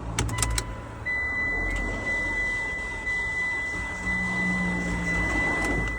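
2011 Mitsubishi Lancer's four-cylinder engine cranking over on the starter without catching, after a few clicks as the starter engages, with a steady high-pitched tone over it from about a second in. The cranking is a sign of low compression, which the mechanic judged from the sound of the engine turning over.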